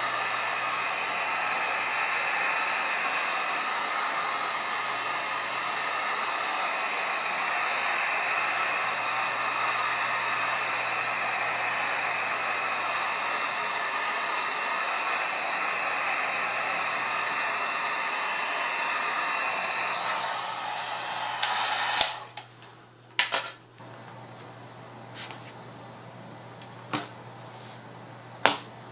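Electric heat gun blowing steadily with a faint whine, heating the cracked glass of an iPad. It is switched off about 20 seconds in, and several sharp clicks follow.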